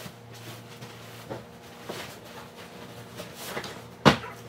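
Pillows and bedding rustling as they are handled and straightened on a bed, with a sharp thump about four seconds in, over a steady low hum.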